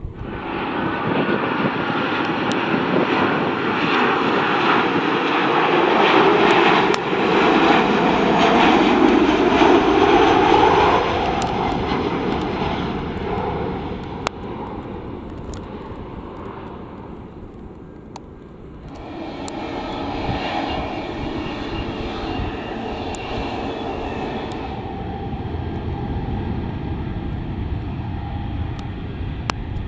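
TUI Boeing 737 jet engines running at power as the airliner passes along the runway and lifts away, loudest about a third of the way in and then fading. After a cut about two-thirds in, an airBaltic Airbus A220-300's geared turbofans give a steadier, quieter jet sound as it moves along the runway.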